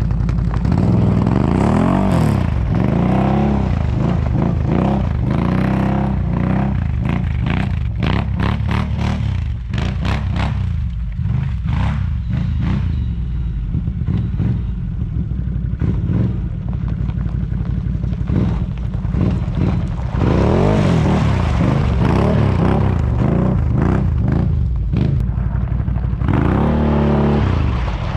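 Can-Am Renegade 800 quad's V-twin engine revving up and down as it pulls away across wet ice, weaker while it is off at a distance, then revving strongly again as it comes back near the end. A stretch of rapid clicking and scraping comes through a few seconds in.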